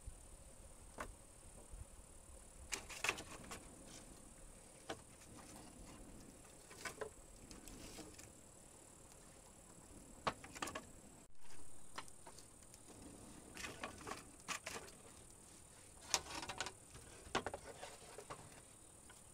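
Steady high-pitched insect drone, with scattered short knocks and clicks of handwork coming through it in small clusters.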